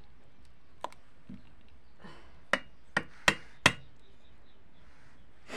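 Metal ladle knocking against the rim of a large aluminium cooking pot: one light knock about a second in, then four sharp knocks in quick succession a little past halfway, as the ladle is tapped off after stirring salt into the boiling rice.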